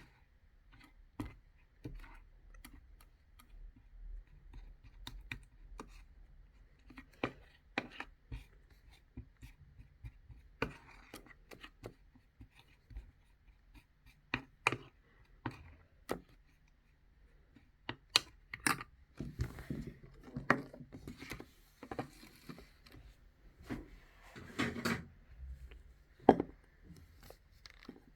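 Irregular clicks, taps and knocks of small objects being handled, with a busier stretch of scraping and rustling about two-thirds of the way through.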